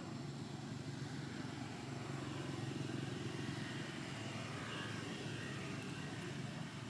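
Steady low outdoor rumble with a faint low hum running under it.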